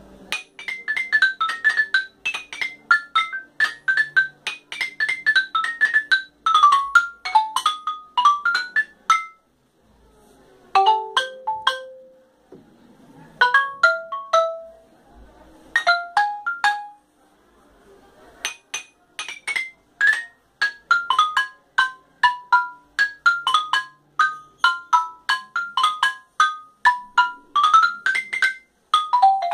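Yamaha wooden-bar mallet keyboard played solo: fast runs of short, bright struck notes, many of them descending, with a few brief pauses between phrases.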